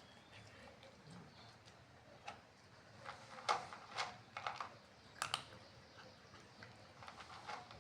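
A cat chewing its food: irregular soft clicks and smacks, thickest and loudest in the middle.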